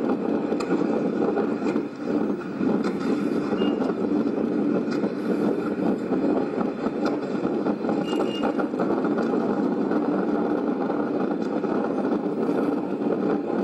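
Motorboat engine running steadily, heard from on board as a constant, unbroken hum.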